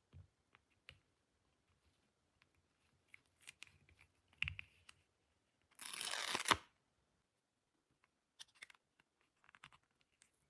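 Toy packaging and small plastic toy pieces being handled during an unboxing: scattered light clicks and rustles, with one loud tearing sound of about a second around six seconds in.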